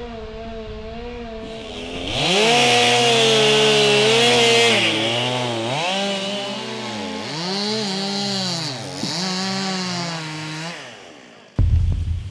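Two-stroke chainsaws cutting timber. The engine runs steadily at first, then climbs to high revs about two seconds in, with repeated dips and rises in pitch as the saws bite and ease off. The saws stop about eleven seconds in, and a low throbbing hum starts just before the end.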